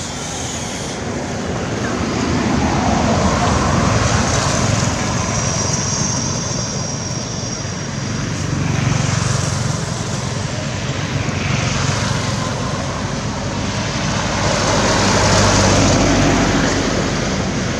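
Motor engine noise, a continuous rumble with a low hum that swells and fades several times.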